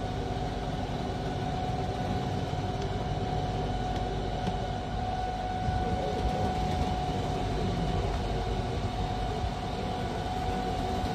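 Glass-bottom tour boat's motor running steadily, with a constant whine over a low rumble.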